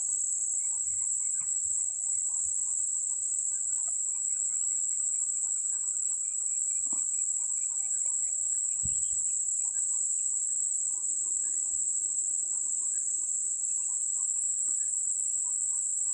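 Steady, high-pitched insect buzzing, with scattered faint bird chirps and two soft knocks around the middle.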